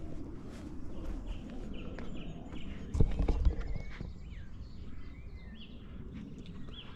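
Footsteps walking along an outdoor path under a steady low rumble on the microphone, with a brief loud low rumble about three seconds in. Small birds chirp in short high notes through the second half.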